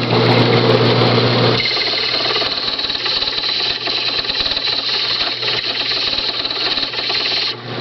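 Ilco key duplicating machine's motor running, and from about a second and a half in, a freshly cut key held against its spinning deburring brush, a dense rattling scrape that grinds the burrs off the new cuts.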